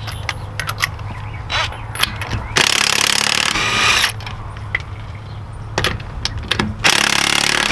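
Cordless impact wrench hammering lug nuts loose on a car's rear wheel in two bursts of about a second and a half each, the second near the end, with light clinks of the socket going onto the nuts before and between them.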